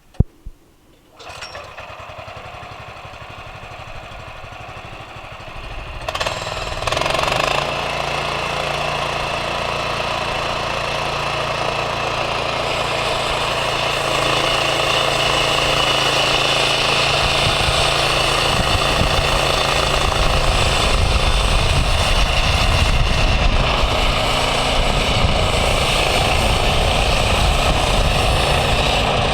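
Gasoline engine of a Woodland Mills portable bandsaw mill starting about a second in and running, stepping up louder around six seconds in and again around fourteen seconds in as the band blade runs through the log, taking the bark off the first cut.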